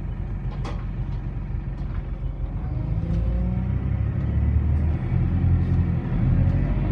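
Alexander Dennis Enviro400 double-decker bus heard from the lower-deck cabin: a low engine and drivetrain rumble that grows louder about three seconds in as the bus pulls away. A few light rattles or clicks of the interior fittings come early on.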